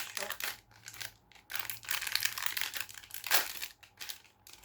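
Plastic packaging crinkling and rustling as it is handled, in irregular spells with short pauses and one sharper crackle about two-thirds of the way through.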